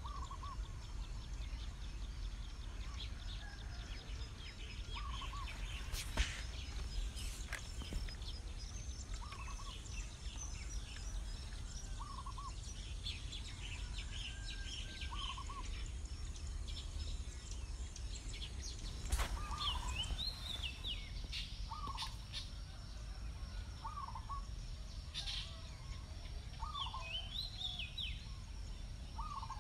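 Wild birds calling: one bird repeats a short call about every two to three seconds, with higher chirps from other birds, over a steady low rumble. A few sharp knocks stand out, the loudest about six seconds in and another about nineteen seconds in.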